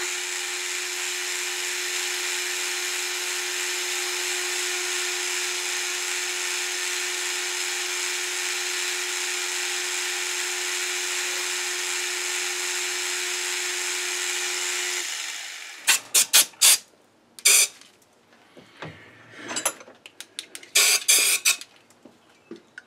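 Metal lathe boring the inside of a thick-walled aluminium tube with a boring bar: a steady machining noise with a held hum, which stops about 15 seconds in. Then two short bursts of sharp clacks and rattles.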